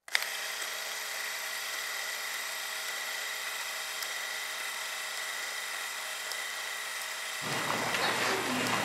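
Old-film sound effect: a steady hiss with a thin high whine and a few faint crackles. About seven and a half seconds in it gives way to a fuller, lower room sound with a faint hum.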